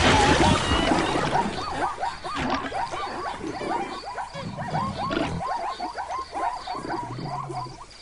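Animal calls: a loud noisy burst at the start, then a run of short rising-and-falling squeaks, about three or four a second.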